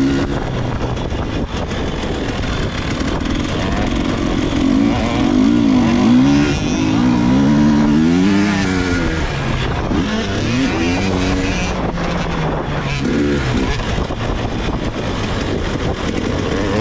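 GASGAS EC300 two-stroke enduro motorcycle being ridden, its engine pitch rising and falling again and again as the throttle is opened and closed.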